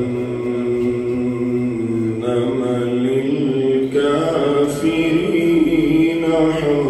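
A male reciter chanting the Quran in melodic tajweed style, with no accompaniment. He holds long drawn-out notes that shift in pitch every couple of seconds.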